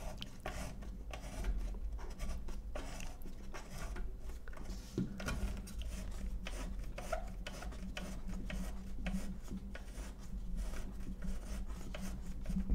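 Large threaded circular mains connector being screwed by hand onto its panel socket: repeated rubbing and scraping of the coupling ring, with many small clicks.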